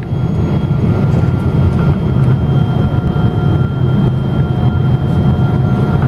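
Cabin noise inside a Boeing 777-200 airliner in flight: a steady low rumble of engines and airflow, with a few faint steady whining tones above it.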